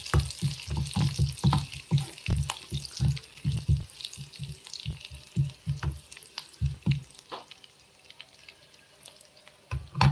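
Metal spoon stirring chopped onions frying in oil in a mini cooker's nonstick pot: quick scraping and knocking strokes against the pot over a light sizzle. The stirring stops about seven seconds in, and a single knock comes near the end.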